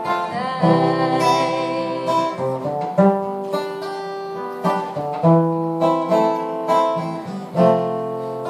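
Acoustic guitar strumming slow chords, a new strum about every second, in an instrumental gap of a soft pop ballad.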